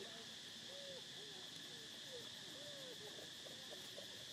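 Steady high drone of insects, with many short rising-and-falling tonal calls sounding in quick succession underneath.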